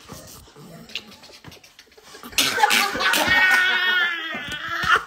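A group of people laughing. It is quiet at first, then loud, high-pitched laughter breaks out about two and a half seconds in and carries on to the end.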